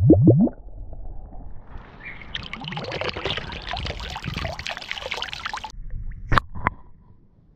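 Water glugging into a round glass bottle held underwater, the rapid gulps ending about half a second in; then water poured out of the bottle splashing onto a lake surface, cutting off suddenly; then two short knocks close together near the end.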